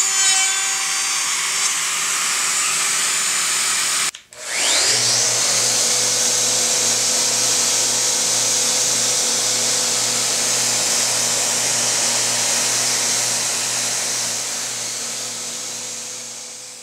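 Festool OF1010 plunge router running, cutting a quarter-inch groove in a white maple drawer side. About four seconds in the sound breaks off and a random orbital sander spins up with a rising whine, then runs steadily sanding the maple, fading away near the end.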